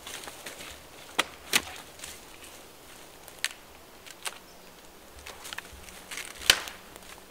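Dry dead pine branches snapping as they are broken off a fallen pine: a handful of sharp, separate cracks, the loudest near the end, with light crunching of footsteps on the forest floor between them.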